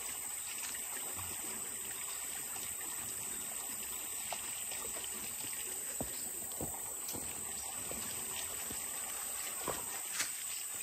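Steady trickle of creek water, with a few faint clicks, the clearest about six seconds in and near the end.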